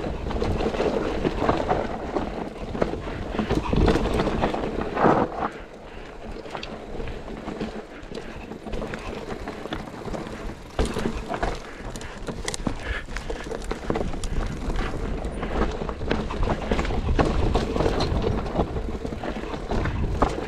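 Enduro mountain bike ridden over a rough trail: steady tyre noise with many sharp rattles and knocks from the bike. It is louder for the first five seconds or so, then a little quieter.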